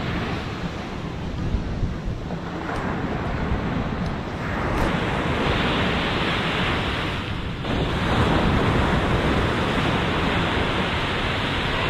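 Ocean surf breaking and washing up the beach, a steady rush that swells louder twice as waves come in, with wind buffeting the microphone.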